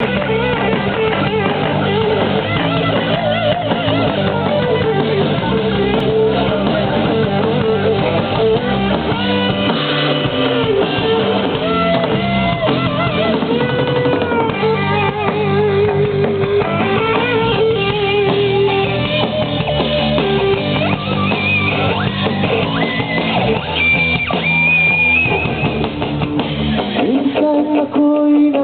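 Live rock band playing, with electric guitars, a drum kit and a male singer's wavering vocal line over the backing.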